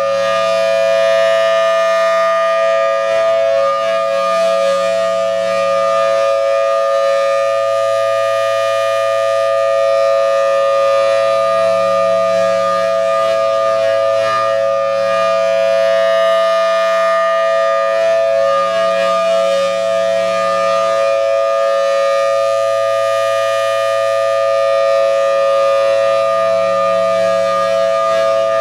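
Federal Signal Thunderbolt 1000T outdoor warning siren sounding its full-alert steady signal: a loud, unwavering chord that swells and eases in loudness every several seconds as the siren rotates.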